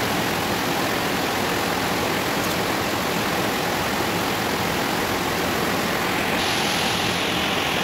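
Round fritters deep-frying in hot oil in a pan, a steady sizzle with no breaks.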